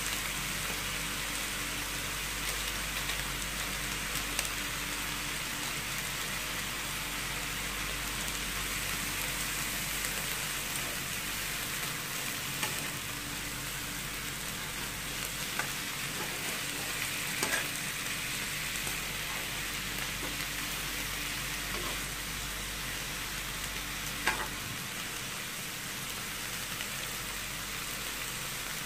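Clams and frozen mixed vegetables sizzling steadily in a hot wok, with occasional short taps and scrapes of a spatula as the food is stirred, the sharpest late on.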